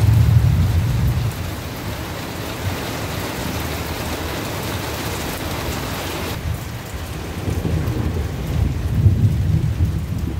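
Steady rain hissing, with low rumbles of thunder at the start and again near the end. The higher rain hiss drops off abruptly about six seconds in.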